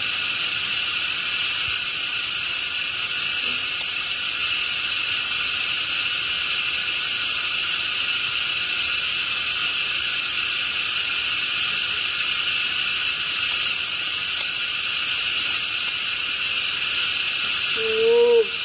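A steady, high-pitched insect chorus drones on without a break. Near the end a baby macaque gives one short squeaking cry that rises and falls in pitch.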